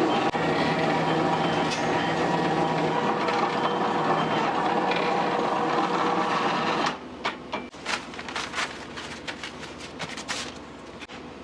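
Restaurant kitchen noise: a steady mechanical hum, likely from an exhaust hood or burner, drops off about seven seconds in. A run of sharp clinks and knocks of utensils and dishes follows.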